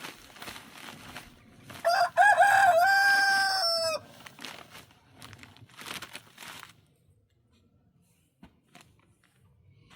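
A rooster crows once, a loud call of about two seconds that starts about two seconds in, rises, holds steady and drops at the end. Rustling noises come before and after it.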